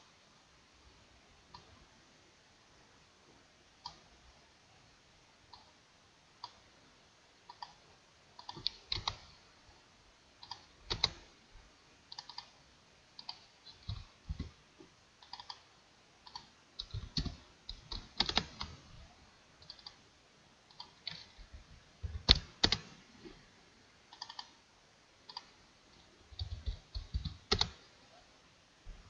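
Irregular clicks and keystrokes from a computer mouse and keyboard, some single and some in quick runs of several.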